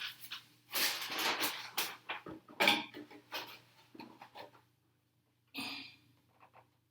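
Crinkling and crackling of a thin painted plastic RC truck body being handled, with masking tape being peeled off its light areas; irregular short rustles, a pause, then one more burst near the end.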